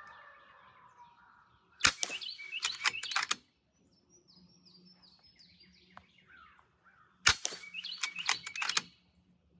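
Two shots from a pre-charged pneumatic bullpup air rifle, about five seconds apart, each a sharp crack followed by a quick run of clicks. Between the shots a bird calls with a series of falling chirps.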